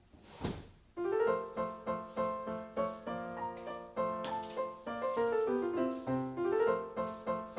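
Background piano music, a gentle melody with a held lower part, starting about a second in, just after a brief rushing noise.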